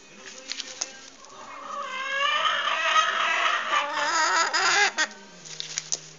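Hen giving a long, wavering call that swells in about a second in and lasts nearly four seconds, with a few light clicks just before it.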